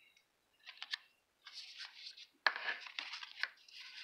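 Trading cards being handled: a few short rustling, scraping sounds of glossy cards sliding against each other and onto a mat, the loudest starting sharply about two and a half seconds in.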